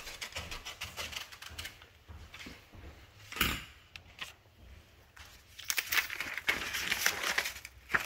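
Rustling and scraping handling sounds: a run of quick clicks at first, one sharp scrape about three and a half seconds in, and a louder stretch of rustling near the end.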